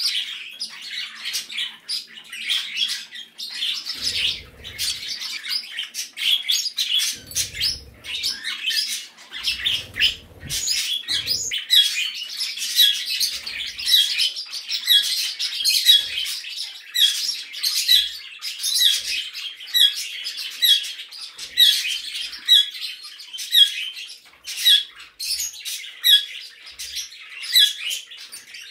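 A room full of small pet birds (budgies, cockatiels, parakeets and canaries) chirping and chattering all at once. From about twelve seconds in, one short downward chirp repeats over and over, more than once a second, above the rest.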